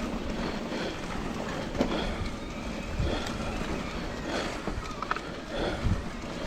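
2021 Trek Rail 9.7 electric mountain bike rolling along a dirt trail: a steady rumble of tyres and wind on the microphone, with scattered short clicks and knocks from the bike rattling over roots and bumps.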